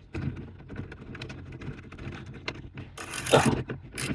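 Handling noises under a car's dashboard: small clicks and rubbing of tools and parts, with a louder scrape about three seconds in.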